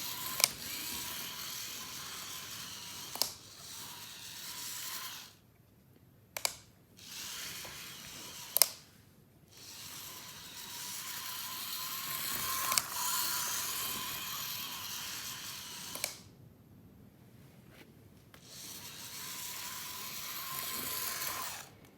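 Model railway locomotive's small electric motor whirring as it runs along the track, stopping and starting several times as it shuttles backwards and forwards. Sharp clicks come now and then.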